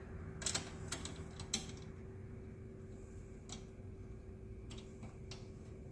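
Scattered light metallic clicks and taps, about half a dozen, as a steel drag spring and its screw are handled and fitted onto a tubing anchor catcher housing, over a steady low hum.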